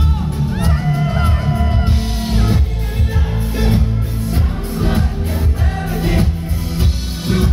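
Live synth-pop band playing loudly through a festival PA: keyboards and drums with a male lead singer's voice.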